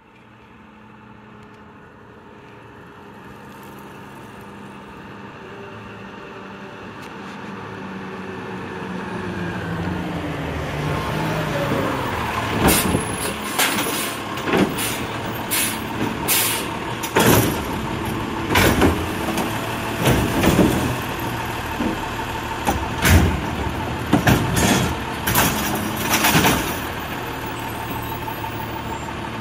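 Automated side-loader garbage truck growing louder as its engine draws near, then stopping to work its lifting arm on green-waste carts: a steady whine with repeated loud bangs and clanks as the carts are tipped into the hopper.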